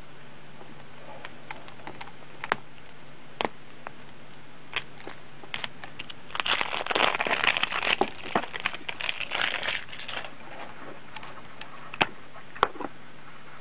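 Hands handling a small plastic toy bottle and its packaging: scattered light plastic clicks and taps, a few seconds of crinkling plastic in the middle, and two sharp clicks near the end.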